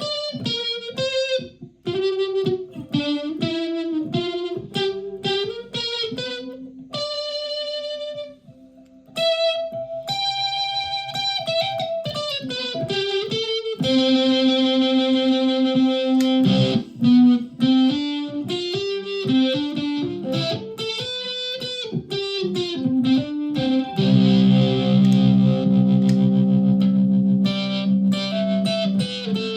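Flight Centurion solid-body electric ukulele played through a home-built clone effects pedal and amplified through a PA speaker, picking a melody of single notes with slides, then twice letting a distorted chord ring out.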